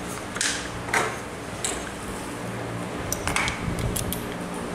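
Aluminium shaft tubes of a pole pruner being handled and fitted: a few light metallic clinks and knocks, then a quick cluster of clicks about three to four seconds in, over a steady low hum.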